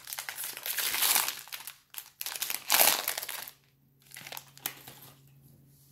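Wrapper of a Bowman Draft Super Jumbo trading-card pack crinkling as it is handled and opened. There are two loud stretches in the first three and a half seconds, then a few faint ticks.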